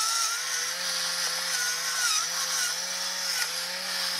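Electric pepper mill grinding peppercorns: a steady motor whir with a wavering hum under a dry grinding hiss, cutting off suddenly at the end.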